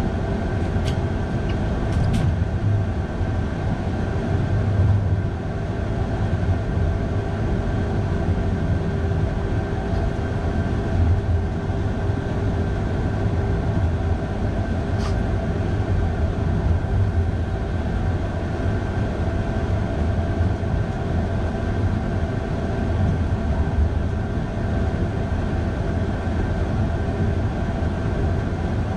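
Electric train running uphill on snow-covered track: a steady low rumble with a steady hum of several tones from the drive, and a few faint clicks about one, two and fifteen seconds in.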